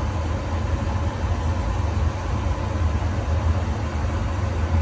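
Steady low droning hum of a cleanroom air-handling blower, unchanging in level.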